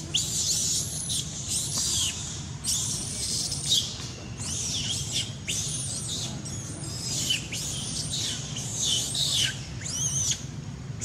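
Young macaque squealing over and over: a string of shrill calls, each falling in pitch, one or two a second.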